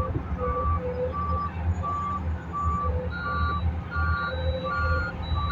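Backup alarms on heavy machinery beeping steadily, about one beep every 0.7 seconds. A second, higher-pitched alarm joins out of step about three seconds in. Underneath runs the low, steady rumble of large diesel engines.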